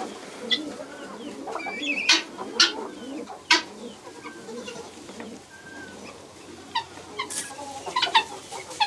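Helmeted guineafowl calling: scattered short, sharp calls and small chirps, the loudest around two to three and a half seconds in and again near the end.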